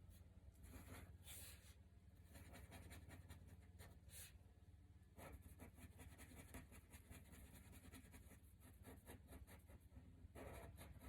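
Faint, rapid scratching strokes of a drawing tool on paper as a drawing is coloured in, with a steady low hum underneath.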